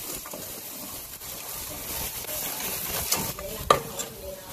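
Whole lobsters sizzling on a barbecue grill, a steady hiss, with one sharp click near the end.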